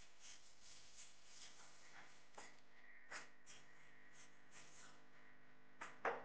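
Silicone spatula stirring and scraping grated coconut as it dry-toasts in a nonstick frying pan: soft, faint swishes of the dry shreds repeating every half second or so, with a few sharper knocks near the end.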